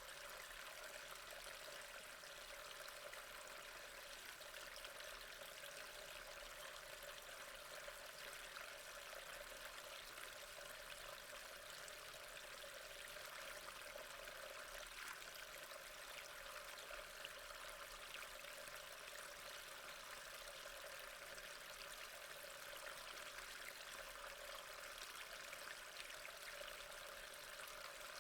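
Water running steadily through a storm drain, a faint, even stream of pouring and trickling water.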